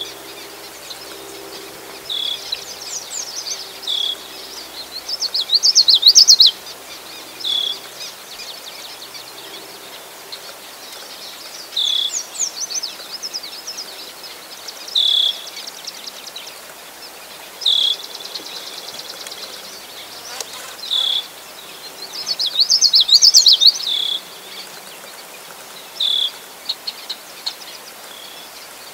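Birds calling over a marsh: short high notes repeating every couple of seconds, with two louder bursts of rapid, jumbled song, one about three to six seconds in and one about twenty-two to twenty-four seconds in.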